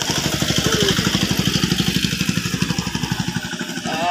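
A small engine idling with a steady, rapid pulse, thinning out near the end.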